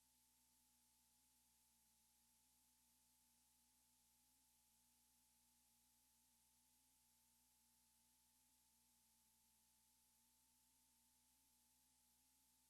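Near silence: faint hiss with two faint steady tones underneath.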